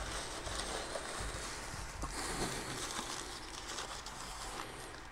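Shredded paper packing and tissue paper rustling and crinkling as hands dig out and handle a tissue-wrapped container; it dies down near the end.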